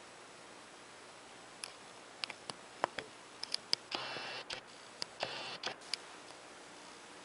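About a dozen sharp clicks and taps, scattered over a few seconds, with two brief rattling bursts in the middle, over a faint steady hiss.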